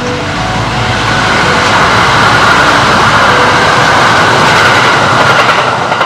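Kintetsu limited express electric train passing close by at speed: a loud rush of wheels on rails that builds over the first second or so, then holds steady as the cars go past.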